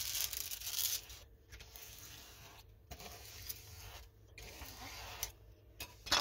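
Plastic scraper sliding over the clear plastic cover film of a sticky diamond painting canvas, with the film rustling and crinkling. Loudest in the first second, then fainter rubbing strokes with short pauses between them.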